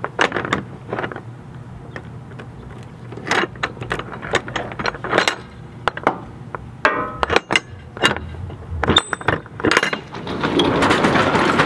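Metal latches and lever lock handle of a box truck's rear door being worked by hand: a string of sharp metallic clicks and clanks, with a quick rattle of rapid clicks about seven seconds in. A louder, steady noise comes in near the end.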